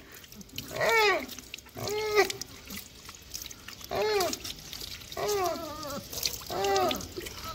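German Shepherd puppy whining during a bath: five short, high, arching cries, one every second or so.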